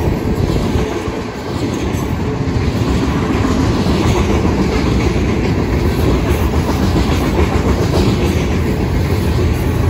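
Freight train cars rolling past on the rails, a steady rumble of wheels on track.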